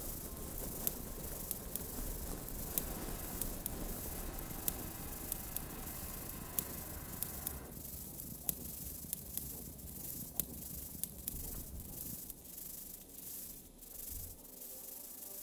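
Live experimental electronic noise music: a dense hiss-and-rumble texture scattered with sharp irregular clicks. About eight seconds in the middle hiss drops away, leaving the clicks over a low rumble.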